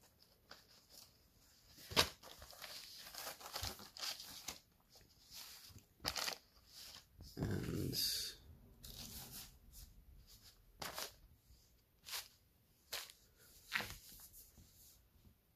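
Plastic packaging crinkling and thin polyester shorts rustling as they are handled and unfolded, in scattered short crackles. The sharpest comes about 2 s in, and a fuller rustle comes near 8 s.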